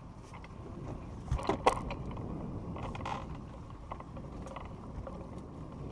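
Fishing reel being cranked against a hooked fish, its gears clicking and creaking, over a steady rush of wind and water. A few sharp knocks about a second and a half in are the loudest sounds.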